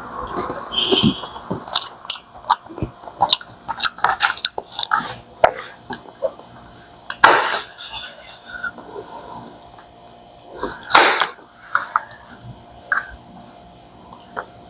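A person eating seafood boil up close: chewing, with many small clicks and cracks from handling and breaking into shellfish. Two louder crackling noises come about 7 and 11 seconds in.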